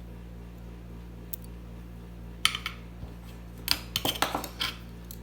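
Small sharp metal clicks and clinks of a fine necklace chain, jump rings and jewelry pliers being handled as the jump rings are worked through the chain links. A short group of clicks comes about halfway, then a denser run of clinks near the end.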